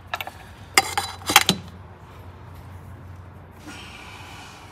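A few sharp metallic clinks in the first second and a half, hand tools and manifold studs and nuts knocking against metal, over a steady low hum; a short rushing noise near the end.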